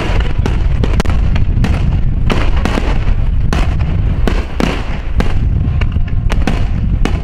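Aerial fireworks display in rapid-fire barrage: sharp shell bursts, about two a second, overlapping one another over a constant low rumble.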